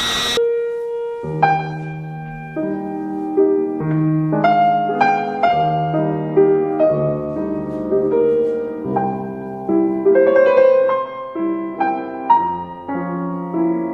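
Piano music: a melody of single notes over chords, with a new note struck about every half second. A loud hissing noise cuts off just as it begins.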